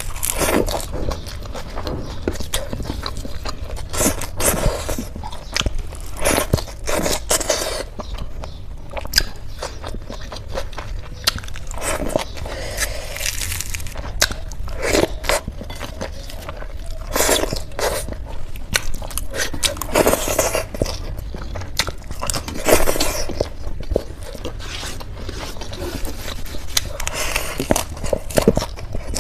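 Close-miked eating: repeated crunchy bites and chewing, with many sharp crackles throughout.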